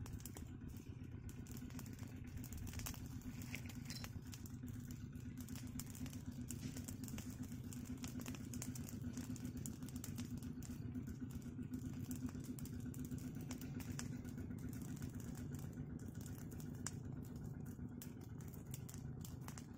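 A swarm of bees buzzing in a steady, unbroken drone, stirred up by smoke driven into their nest. Scattered faint crackles and clicks sound over it.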